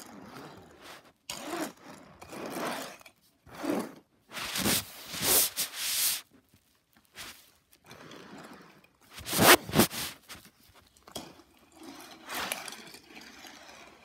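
Hot Wheels die-cast toy cars pushed by hand across a fabric play mat: several irregular scraping, rubbing runs of the small wheels and bodies on the rug, the loudest a little past halfway.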